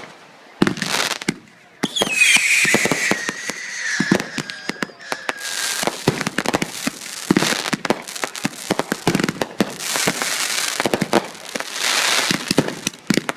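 Consumer fireworks going off: a rapid string of sharp bangs and crackling. About two seconds in, a whistle sweeps down in pitch and holds for a few seconds.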